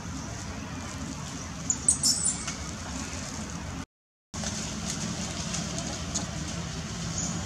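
Steady low outdoor background hum with a quick cluster of sharp, high-pitched squeaks or chirps about two seconds in. The sound cuts out completely for a moment near the middle.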